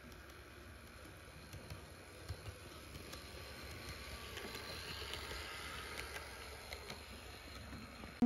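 Bachmann Daisy model diesel railcar running on the layout's track: a faint, quiet motor hum and wheel rumble with light clicks as the wheels cross rail joints, getting a little louder as it runs close by.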